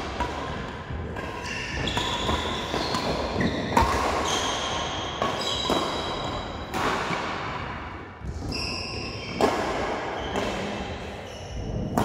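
Doubles badminton rally: rackets striking the shuttlecock every second or two. Between the hits come short high squeaks, shoes squeaking on the court floor.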